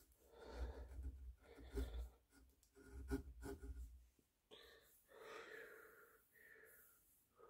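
Faint scraping of a small hand carving gouge cutting molding into the edge of a wooden rifle stock, three short strokes about a second apart. After that, softer rubbing as a hand runs over the wood.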